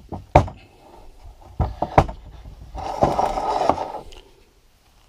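Workshop handling noise as a block is fetched and set on the bench: a few sharp wooden knocks in the first two seconds, then a scraping slide lasting about a second.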